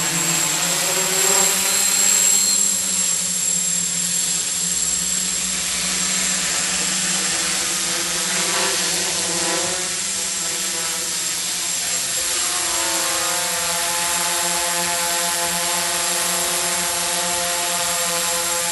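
Hexacopter's six electric motors and propellers buzzing overhead in flight, a steady hum whose pitch wavers up and down in the middle and then settles. The craft is flying itself home under the DJI Wookong-M flight controller's return-to-launch mode.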